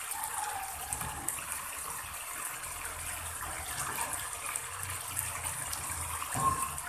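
Thick sweet-spicy sauce bubbling and sizzling steadily around chicken pieces in a wok as it simmers down and thickens, the sauce nearly reduced and the dish almost done. A brief knock sounds near the end.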